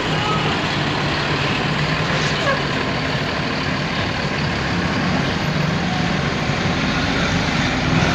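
Steady road traffic noise with a motor vehicle engine running close by, a low continuous hum under a wash of street noise.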